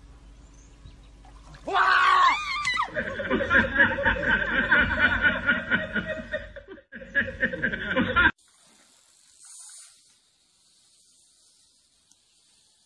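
A short shriek about two seconds in, then loud, continuous laughter that cuts off suddenly about eight seconds in.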